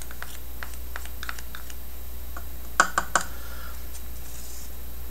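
Small clicks and taps of a wooden craft stick and measuring spoon against a cup as glue is scraped out of the spoon, with three sharper knocks in quick succession about three seconds in.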